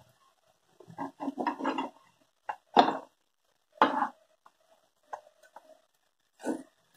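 Flat metal spatula scraping and knocking against an iron tawa in about six short strokes, turning pieces of fish as they shallow-fry.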